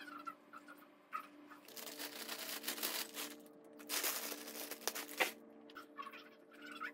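Large plastic bag of breakfast cereal crinkling and rustling as it is handled, in two spells of a second or more each, ending with a sharp tap. A steady low hum runs underneath.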